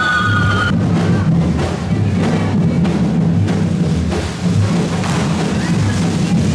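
Drums beaten in a steady rhythm. A whistling firework's high tone, falling slightly in pitch, cuts off suddenly about a second in.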